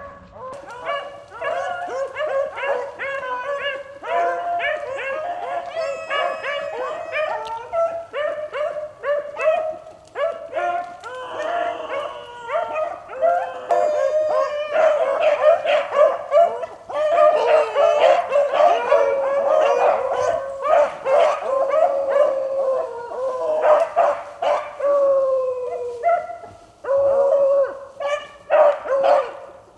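A pack of beagles baying and barking continuously, several voices overlapping, in full cry as they run a rabbit; the chorus swells louder about halfway through.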